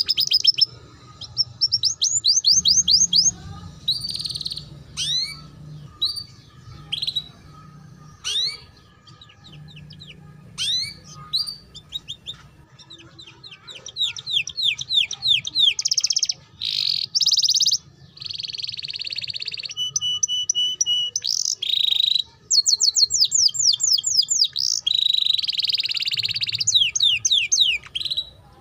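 Domestic canary singing a long, varied ngeriwik-style song: fast series of repeated sweeping chirps and trills, broken by buzzy rolls and one held whistled note about two-thirds through, with a sparser stretch of single notes in the middle. This is the master (pancingan) song used to teach young canaries to sing.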